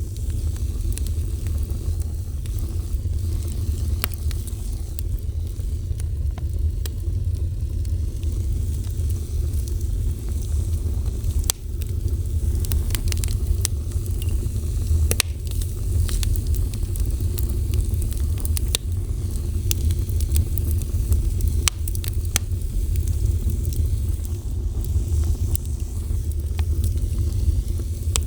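Wood fire burning, a steady low rumble with scattered sharp crackles and pops.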